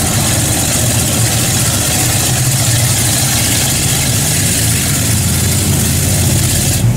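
Lifted Dodge Ramcharger's engine running steadily as the truck wades through a deep mud pit, a constant low drone with water and mud churning around the tyres.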